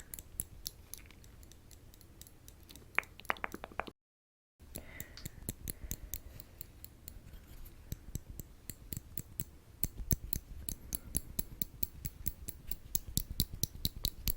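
Rapid, crisp metallic clicking of a small hand tool, tweezers or scissors, worked close to the microphone for ASMR, several clicks a second. The sound drops out completely for about half a second around four seconds in.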